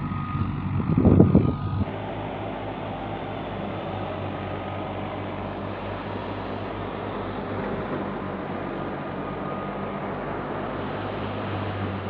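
A wheat thresher driven by a Fiat 480 tractor through its shaft, running steadily with a low, even hum from the tractor's diesel engine under the clatter of the drum. A short, loud burst of noise comes in the first two seconds, before the steady running.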